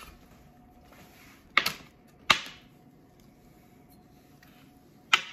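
Knife chopping through a block of vegan butter and knocking down onto an Epicurean cutting board: three sharp knocks, two close together early and a third near the end.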